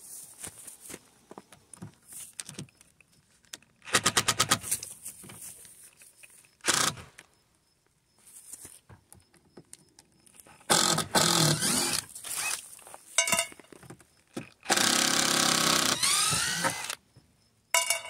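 DeWalt cordless driver backing screws out of weathered deck boards, in several bursts of a second or two each. The longest burst, near the end, carries a rising whine.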